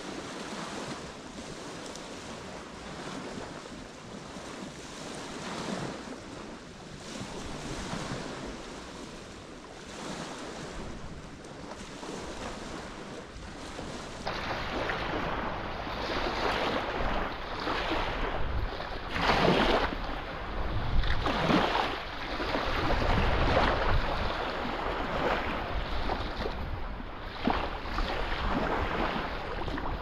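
Wind and small waves washing on a lake shore. About halfway through, the sound turns louder and gustier, with wind buffeting the microphone in uneven surges.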